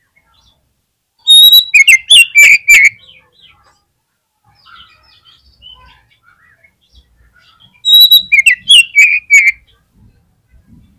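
Oriental magpie-robin singing: two loud phrases about six seconds apart, each opening with a held high whistle and running into quick, sharp notes, with soft twittering between them.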